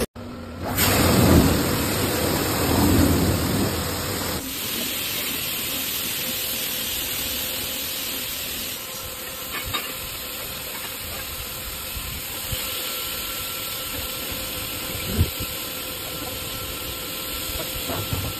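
Touchless automatic car wash spraying a car with high-pressure water and foam from its overhead gantry arm: a steady hiss of spray, louder for the first few seconds.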